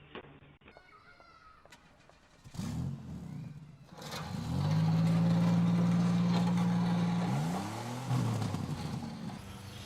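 Car engine revving up. Its pitch rises about two and a half seconds in, then holds a loud, steady high note for about three seconds. It climbs once more and drops back to a quieter, steady running sound near the end.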